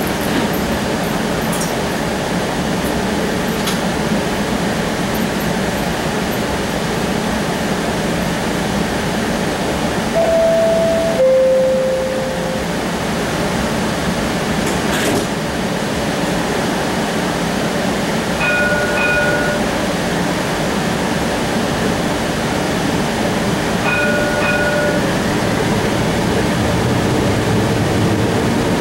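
Inside a CAF Urbos 3 streetcar: steady running and ventilation rumble. A falling two-note chime sounds about ten seconds in, and a short electronic tone sounds twice in the second half and again at the end.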